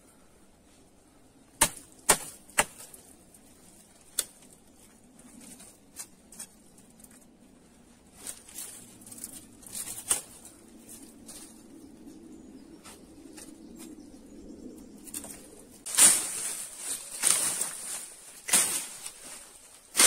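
Dry twigs and branches snapping and crackling as they are handled. There are three sharp snaps about two seconds in and lighter ones after, then louder rustling and crackling of dry brush in the last few seconds.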